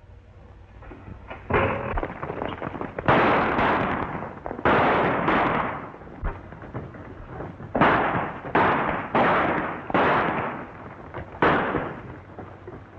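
A string of about ten gunshots in a Western movie shootout, starting about a second and a half in and coming irregularly, sometimes two close together. Each shot is a loud crack that rings out and fades over about half a second to a second.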